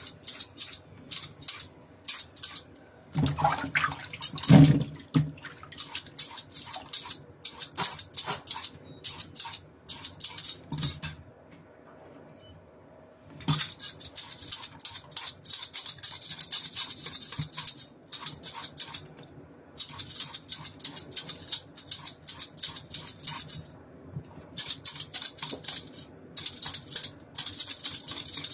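A metal hand peeler scraping down a cucumber in quick repeated strokes, several a second, cutting it into thin strips. It stops briefly about twelve seconds in and again near the end, with a few dull knocks of handling about four seconds in.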